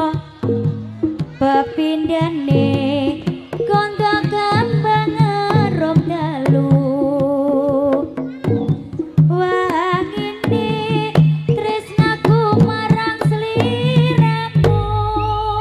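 Jaranan dance music played live: quick hand-drum strokes with a wavering, ornamented melody line over them.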